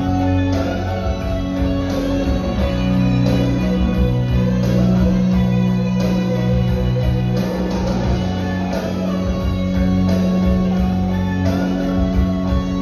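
Music with guitar over a steady bass line, played back through a home-theatre receiver's speakers.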